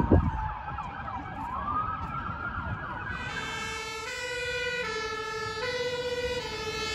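Emergency vehicle sirens: a wailing siren that falls and rises again, then a two-tone siren alternating between two notes a little under once a second. A brief thump right at the start.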